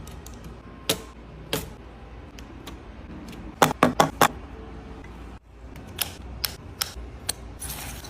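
Irregular sharp clicks and knocks, with a quick cluster of four loud ones near the middle, over a steady low hum.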